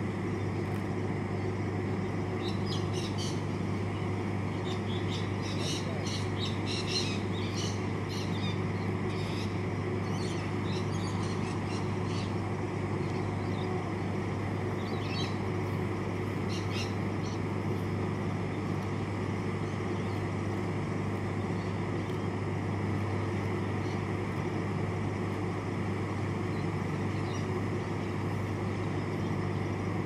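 Bird chirping: short, high chirps in quick clusters during the first twelve seconds or so, with a few more scattered later, over a steady low hum.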